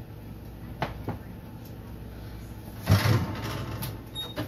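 Metal oven rack being pushed back into an oven, a rattling metal scrape about three seconds in, after two light clicks.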